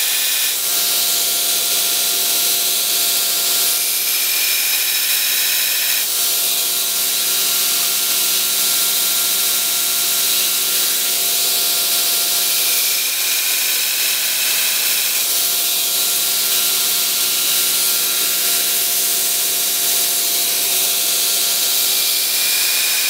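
Belt grinder running with a steel knife blade held against the sanding belt on the flat platen, grinding a flat bevel: a steady, loud hiss of abrasive on steel over the machine's steady hum, with a few brief breaks.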